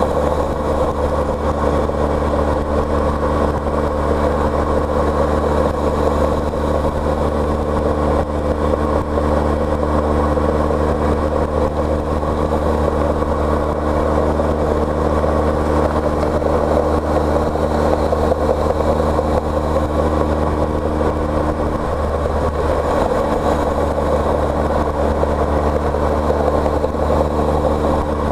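Car engine running steadily with road noise, as heard on the move, with no revving. The engine note shifts slightly about three-quarters of the way through.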